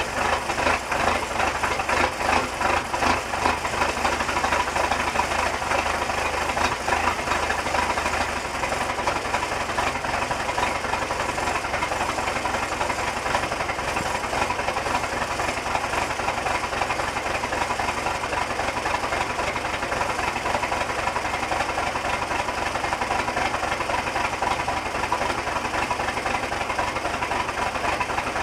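1986 Ford F-350's engine idling shortly after a cold start in sub-zero cold. It runs unevenly with a pulsing beat at first, then settles into a steadier idle about eight seconds in.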